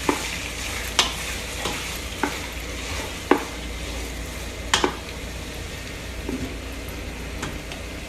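Chicken and chopped onions sizzling in hot oil in a pot while being stirred, with the stirring utensil knocking against the pot now and then, about six knocks, most of them in the first five seconds.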